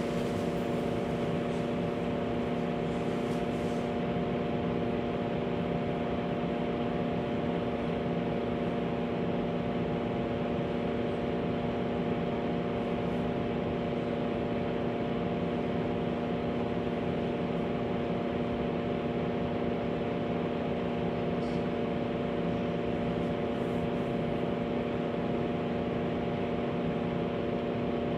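A steady, unchanging hum made of several held tones over an even noisy wash.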